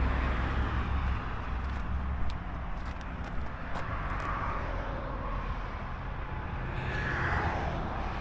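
Outdoor background of distant road traffic: a steady low rumble that swells a little about seven seconds in.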